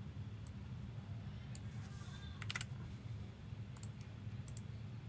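Computer mouse clicking a randomiser: a handful of sharp clicks, most about a second apart, with a quick run of three near the middle, over a steady low hum.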